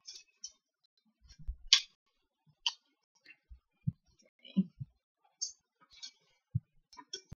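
Wooden cooking utensils clicking and knocking against a frying pan as diced chicken and onion are stirred: scattered, irregular light clicks and a few dull knocks.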